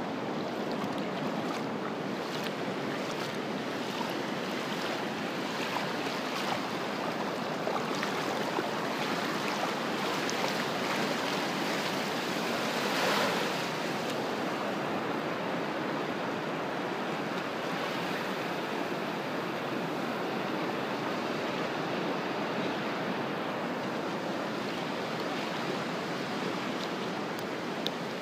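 Ocean surf breaking and washing over the shallows in a steady rush, with one louder surge of a wave near the middle.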